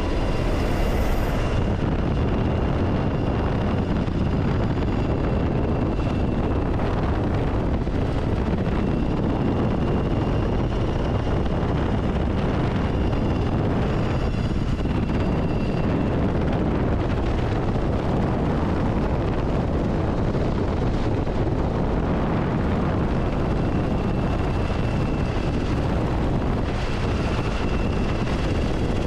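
UH-60 Black Hawk helicopter in flight, heard from inside the cabin: a steady, loud rumble and rush of rotor and engine noise, with a faint high whine that comes and goes.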